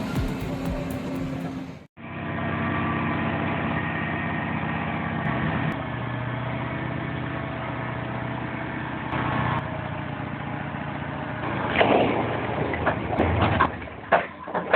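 A heavy vehicle's engine running steadily, followed near the end by a series of loud, irregular knocks and clatter.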